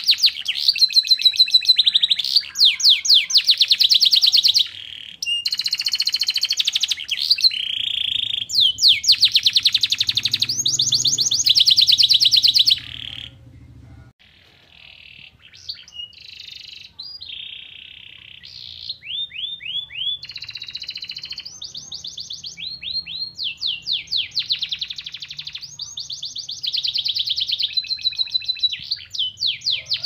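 Domestic canary singing in long runs of fast trills and rapidly repeated whistled notes. The song turns quieter and broken about halfway through, then picks up again. Its song carries phrases learned from the Oriental white-eye (pleci).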